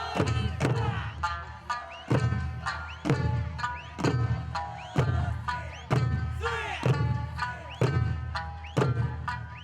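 Music with a heavy drum struck about once a second under a pitched melody.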